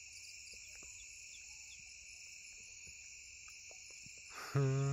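Steady night chorus of crickets: a continuous high-pitched trilling that holds without a break.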